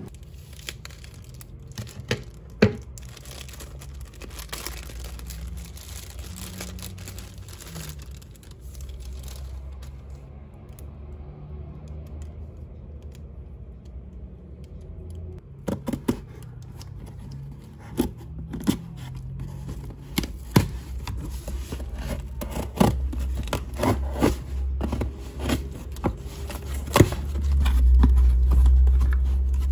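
Hands opening packaging: plastic wrap crinkling and tearing, scissors snipping, and scattered sharp clicks and taps, coming thick and fast in the second half. Near the end the scissors go at a cardboard box and the box is handled, with a louder low rumble.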